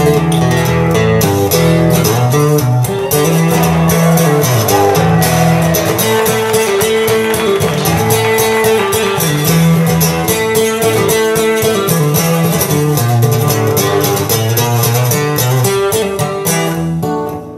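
A song with guitar played back loudly through a high-end hi-fi stereo system, heard in the listening room; the music briefly drops away just before the end.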